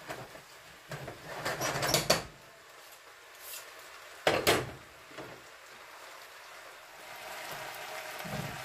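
Kitchen handling sounds: a spoon clattering and knocking in a stew pot for about a second, then a single sharp knock of a door or lid near the middle, and a steady background noise rising near the end as the refrigerator is opened.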